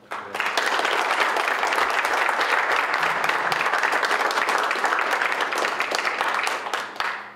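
Audience applauding: a dense round of many hands clapping that rises within the first half second, holds steady, and tails off about seven seconds in.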